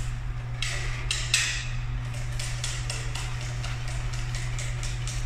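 Wire balloon whisk beating cream and sugar by hand in a metal saucepan: repeated scraping clicks of the wires against the pot, about three strokes a second. A steady low hum runs beneath.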